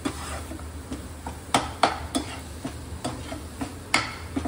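A metal spatula scraping and knocking against a nonstick frying pan as a tomato-onion masala is stirred and pressed, with a low sizzle of the frying spices under it. Several sharp knocks stand out, the loudest about a second and a half, two seconds and four seconds in. The masala is being fried until it releases oil.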